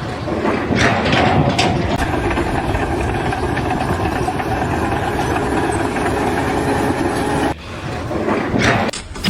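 Steady, loud mechanical noise of a running vehicle or heavy machine, with a brief break about seven and a half seconds in.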